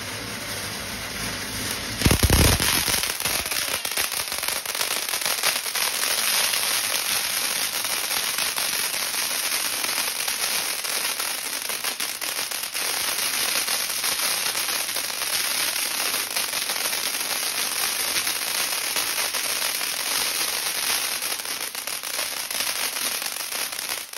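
Ground fountain firework spraying sparks and coloured stars, with a dense, continuous crackle of many small pops. There is one loud bang about two seconds in.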